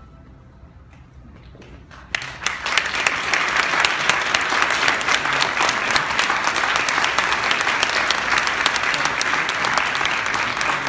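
Audience applauding: a hush with a few scattered claps, then about two seconds in the crowd breaks into loud, dense, sustained clapping.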